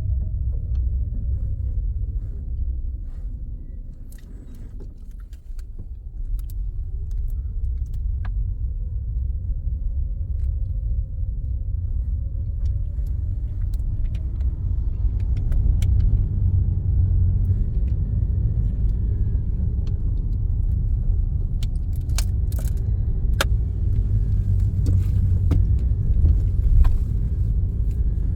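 Car driving with a steady low engine and road rumble, dropping for a moment about five seconds in before building again. Scattered small clicks and rattles come through, most of them near the end.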